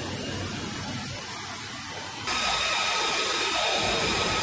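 F-35B's Pratt & Whitney F135 jet engine running at ground idle: a steady rush of noise, with a steady high-pitched whine coming in about two seconds in.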